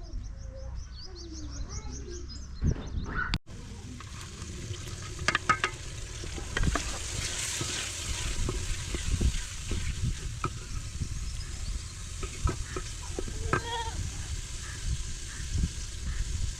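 Food frying and sizzling in a pan, with the clicks and scrapes of a utensil stirring it, beginning about three seconds in after a few bird chirps.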